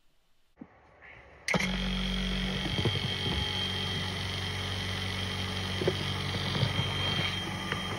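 A small electric machine running steadily: a low mains-like hum with a thin high whine and scattered light clicks, starting suddenly about a second and a half in.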